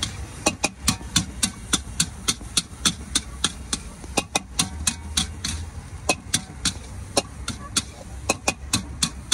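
Metal spatula striking and scraping a large metal wok in quick, regular strokes, about three or four a second, as egg fried rice is stir-fried, over a low steady rumble.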